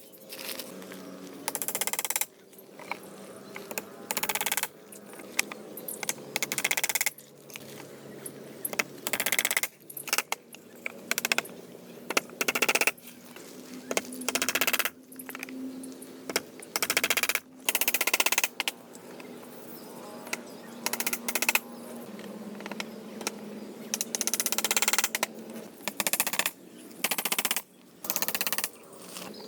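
Rapid series of sharp knocks and clicks, coming in short bursts that stop and start abruptly all through.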